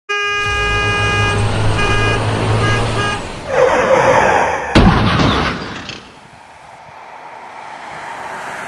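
A horn-like blaring tone sounding in several blasts over a low rumble, then a rushing swell and a sharp bang about five seconds in, fading to a quieter hiss.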